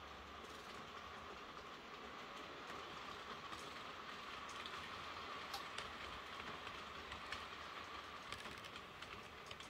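Model electric train running toward the microphone on a model railway: a steady motor whine with light clicks of the wheels over rail joints. It grows a little louder as the train approaches and eases off near the end.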